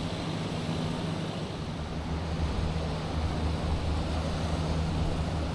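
An engine running at a steady low hum, under a constant rush of wind and surf noise.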